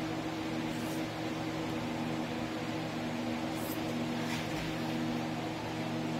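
Large electric shop fans running steadily, a rushing air noise with a low motor hum. A few faint short scratches come through near the middle as a line is marked on the foam along a straight edge.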